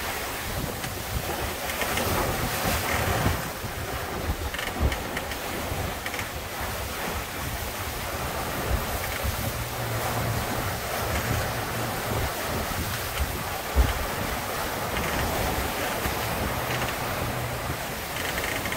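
Strong wind buffeting the microphone and rough water rushing past the hull of an F31 trimaran sailing hard in a breeze, with intermittent creaking from the double-reefed mainsail. A single sharp knock stands out about two-thirds of the way through.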